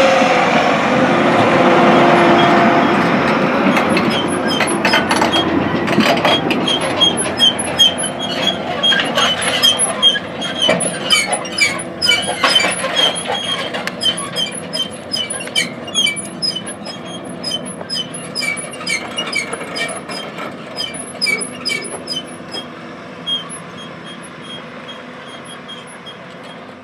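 A 470 hp John Deere 9470R articulated four-wheel-drive tractor's diesel engine running loud as it passes close by, then fading as it pulls away towing a folded Great Plains Ultra-Till. From about four seconds in, the implement's steel frame rattles and clanks, with repeated high metal squeaks, and these too fade toward the end.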